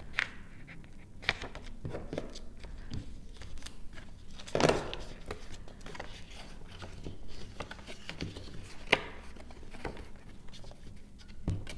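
Scored cardstock being handled and folded along its score lines: light paper rustling with a few scattered taps and knocks on the table, the loudest about halfway through.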